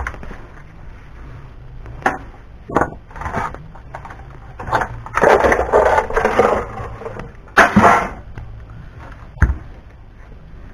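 Knocks and clatter of hard plastic and metal parts being handled and pried apart while an appliance is stripped down. A longer stretch of scraping and rattling comes in the middle, with loud knocks just after it and near the end.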